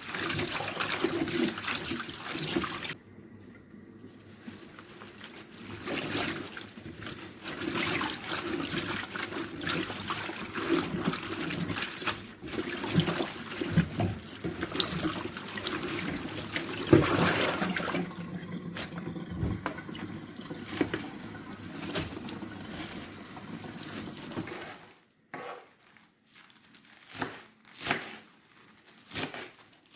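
Water running and splashing as vegetables are washed. It eases off briefly a few seconds in and stops about 25 seconds in, followed by a few sharp knocks.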